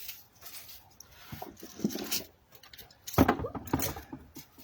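Hands digging through loose raised-bed soil for potatoes: rustling and scraping in short irregular bursts, loudest about three seconds in.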